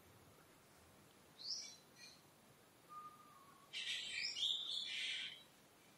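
Faint bird calls: a short high chirp about a second and a half in, then a longer, scratchier call a little past the middle.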